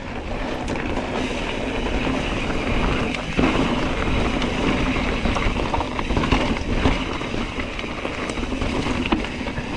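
Santa Cruz Tallboy mountain bike rolling at speed over rocky trail: a steady rumble of tyres on rock and dirt, with the bike rattling and a few sharp knocks.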